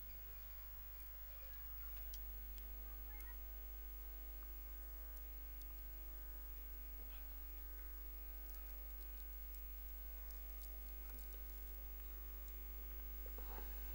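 Low steady electrical mains hum, a little louder after about two seconds, with a few faint scattered ticks.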